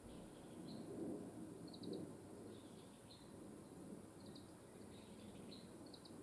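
Faint chirps and quick little trills of small songbirds, repeating every second or so, over a low rustle of wind that swells briefly twice.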